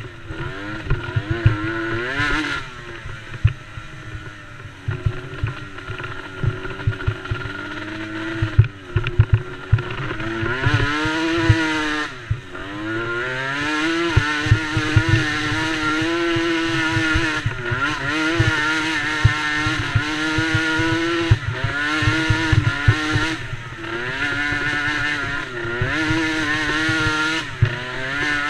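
Small 90cc youth racing quad engines running hard, the engine note climbing under throttle and dropping sharply several times as the riders back off and shift, then holding steady in between.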